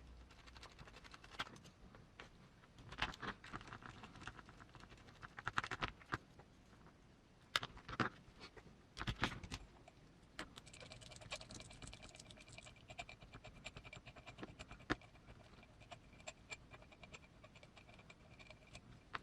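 Small parts of a miniature RC crawler's portal axle and chassis being handled and fitted by hand: irregular light clicks, taps and scrapes. A faint steady whine joins about halfway through.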